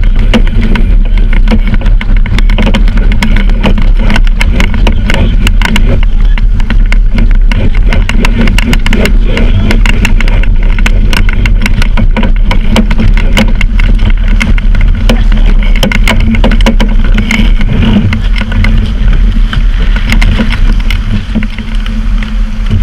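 Loud wind buffeting on the microphone, with constant crackling, over water rushing along the hull of a Tartan 10 sailboat sailing heeled over in a fresh breeze.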